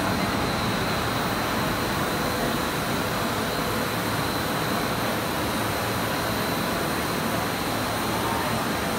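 Steady mechanical noise of a three-layer blown film extrusion plant running, with a faint steady high whine over it.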